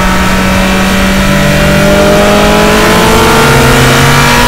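Sports car engine accelerating hard, its pitch rising steadily through one gear.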